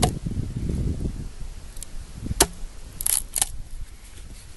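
Fiskars X15 axe splitting small pieces of wood: a sharp knock at the start and a louder crack about two and a half seconds in, followed by two short scraping sounds.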